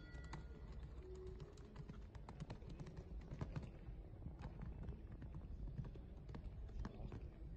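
Hoofbeats of a cantering show-jumping horse on a sand arena, heard as light, irregular clicks and taps over a low steady rumble.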